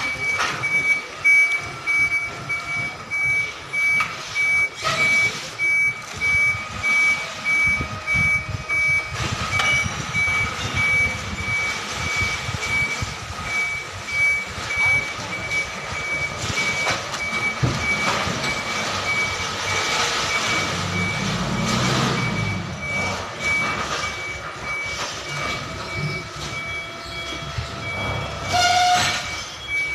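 Container truck's reversing alarm sounding a steady run of high beeps while the truck's engine runs underneath. The engine rumble swells for a couple of seconds past the middle.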